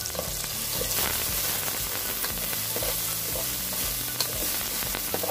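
Diced onions sizzling in hot oil in a pot as they are sautéed, with a spatula stirring them and now and then clicking against the pot.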